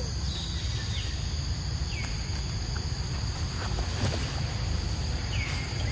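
Steady high-pitched drone of insects with a low rumbling noise underneath. A few short chirps falling in pitch come and go, and there is a single sharp click about four seconds in.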